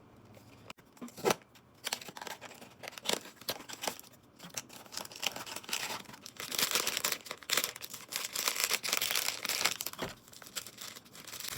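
Blind box packaging being torn open and crinkled by hand: sparse snaps and rustles at first, turning into dense crinkling from about six seconds in that eases off near the end.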